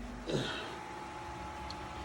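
A brief falling vocal sound from a person, like a short sigh or grunt, then a quiet steady background hum with a faint thin tone.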